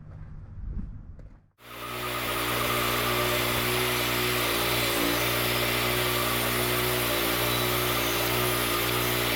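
Wood-Mizer LT40 Wide band sawmill running steadily, its engine under load as the band blade cuts through a dense pecan log. It starts abruptly about a second and a half in, with small dips in the engine note every couple of seconds.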